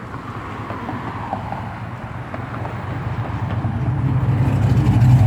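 A vehicle or machine engine drawing nearer, its low hum growing steadily louder and strongest near the end.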